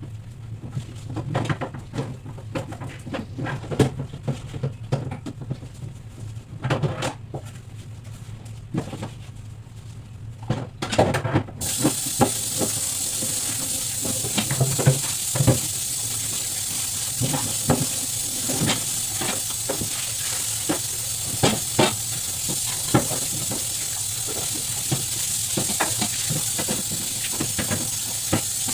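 Household items being handled with scattered knocks and clinks, then a steady hiss starts suddenly about eleven seconds in and runs on under further clinks.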